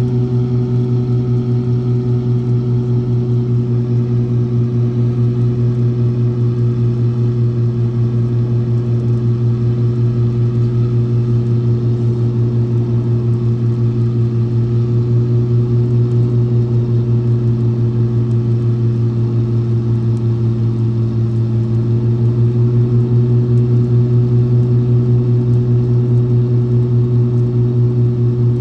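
Piper Aerostar 601P's twin piston engines running, a steady low drone at constant power that grows slightly louder about three quarters of the way through.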